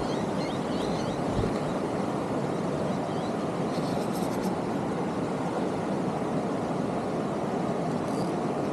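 Steady rushing of shallow water flowing over rocks in a stream riffle, with a few faint high chirps near the start and brief light clicks about four seconds in.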